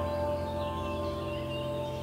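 Calm ambient background music: bell-like tones ring on and slowly fade, with faint chirps like birdsong above them.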